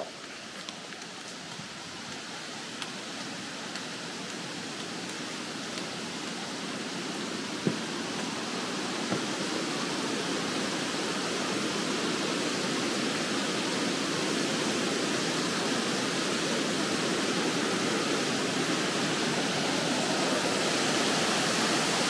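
Rushing water of a mountain river in a gorge, a steady noise that grows gradually louder.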